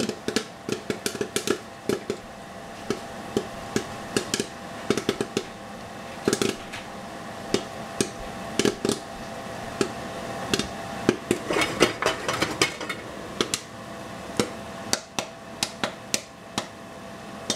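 Hot oil popping and spattering around spring rolls as they fry: pretty noisy, irregular sharp pops, several a second at times, over a steady hum.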